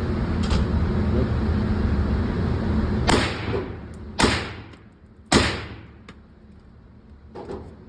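Three shots about a second apart from a suppressed 7.62x39 rifle firing supersonic rounds through a short vented suppressor, each a sharp crack with a short echoing tail. A steady low rumble runs under the first three seconds and fades out.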